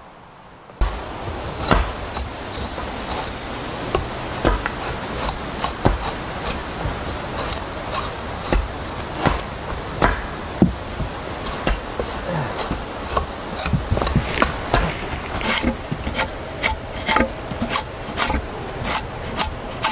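Wood being worked by hand: rough scraping strokes with sharp wooden knocks, irregular, one or two a second, starting about a second in.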